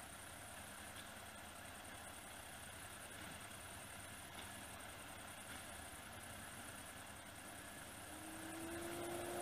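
Faint, steady hum of a vehicle engine. A held low tone comes in near the end.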